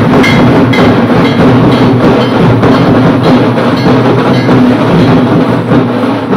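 Live band playing loud, drum-driven music, with rapid, dense drumbeats over a steady body of sound.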